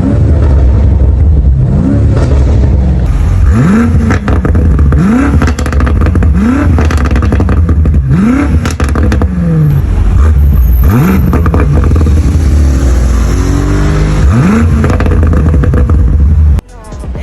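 BMW M5 F90's twin-turbo V8 being revved again and again in quick throttle blips, each rising sharply in pitch and falling back, with crackles and pops from the exhaust. The sound cuts off suddenly near the end.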